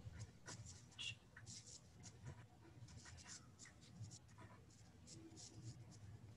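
Faint scratching of handwriting on paper: a string of short, irregular strokes, with a faint low hum underneath.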